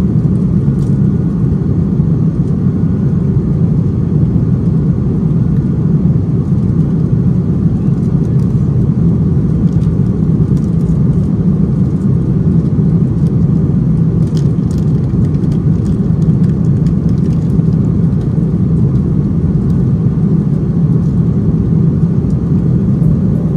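Steady cabin drone of an Airbus A330-300 in flight, the jet engines and rushing airflow heard from a window seat beside the wing: a deep, even rumble that does not change.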